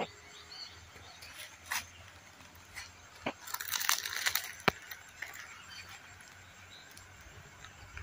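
Quiet outdoor background with a few sharp clicks and a short burst of rustling, crackling noise a little before the middle.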